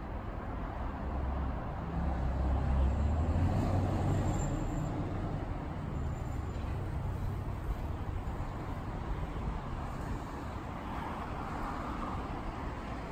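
Road traffic on a city street: a steady low rumble of passing cars, swelling a couple of seconds in and easing off after about five seconds.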